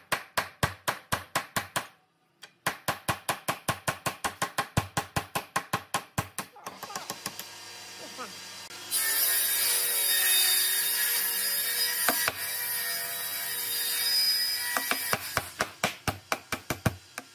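Woodworking: rapid, evenly spaced strikes at about five a second, broken by a short pause, then a power tool running loudly and steadily for about six seconds before the strikes start again.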